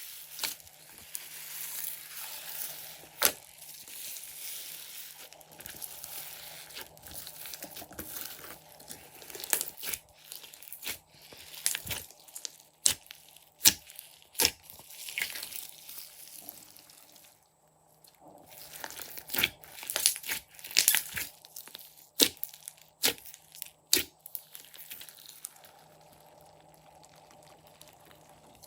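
Hands squishing and stretching slime, with irregular sharp pops and crackles. There is a brief pause just past the middle, and the sound is quieter near the end.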